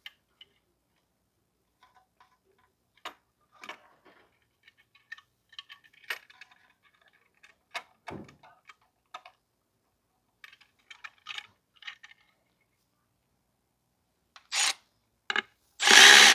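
Light clicks and taps of crimped wire terminals and the horn being handled as the connectors are fitted to the horn's terminals, then three short, loud noises near the end, the last the loudest.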